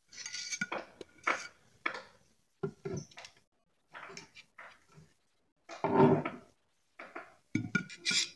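Steel carving fork and knife clinking and scraping against a ceramic plate as steak slices are laid on it, in a string of separate knocks. The loudest knock comes about six seconds in, with a quick cluster of clinks near the end.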